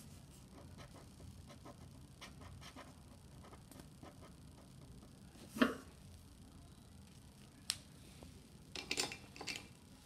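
Felt-tip sketch pen scratching faintly on paper while colouring, then a knock a little past halfway, a single click, and a few small handling noises near the end.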